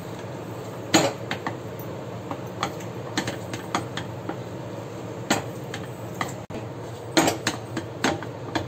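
A wooden spatula knocking and scraping against a steel kadai as thick rice-flour dough is stirred and mixed in the boiled water. The clicks are irregular, over a steady low hum, with the loudest knocks about a second in and again near the end.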